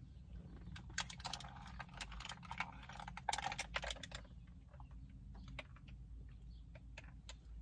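A person drinking coffee: faint scattered clicks and taps of the cup, with short noisy stretches of sipping and swallowing about a second in and again around three seconds in.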